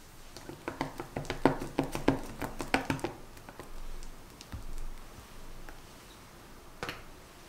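Silicone spatula scooping stiff whipped meringue in a glass bowl, with a quick run of soft clicks and taps against the glass in the first three seconds, then one tap near the end.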